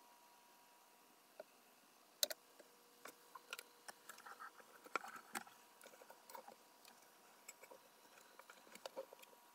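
Faint, irregular clicks and ticks over a steady faint tone. The clicks begin about two seconds in and come a few a second, loudest around the middle.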